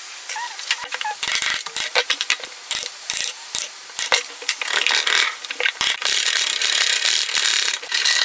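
Wood chisel breaking out and paring the waste from a sawn rebate in a timber door jamb: an irregular run of sharp clicks and cracks, turning about six seconds in to a denser, steadier scraping.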